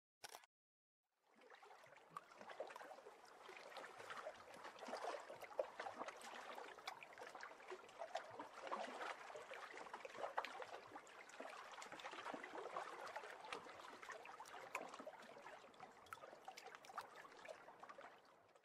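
Faint sound of moving water: an even wash with many tiny clicks, starting about a second in after a brief click and fading out at the end.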